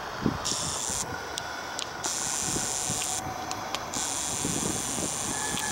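SEPTA Silverliner IV electric commuter train approaching on curved track, with a high hiss that comes and goes in stretches of about a second and a few light clicks. Wind buffets the microphone.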